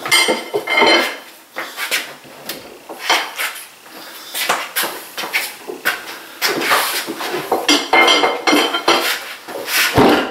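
Irregular wooden knocking and clattering as a heavy workbench top is worked loose from its base with wedges and a pry bar. The strongest knocks come just after the start and again near the end.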